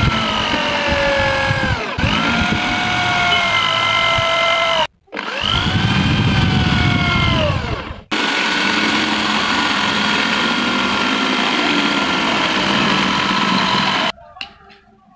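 Electric hand drill boring into wood: a steady motor whine that sags in pitch as the bit bites. It runs in stretches, with a short stop about five seconds in, and cuts off about a second before the end.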